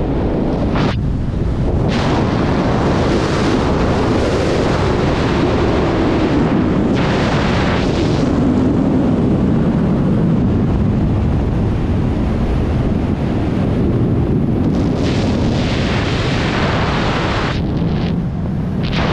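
Loud, steady rush of wind over a wingsuit flyer's camera microphone in freefall and flight, the hiss swelling and easing a few times.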